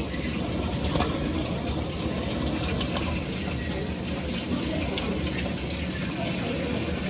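Water running steadily into a washing machine as it fills, with one sharp click about a second in.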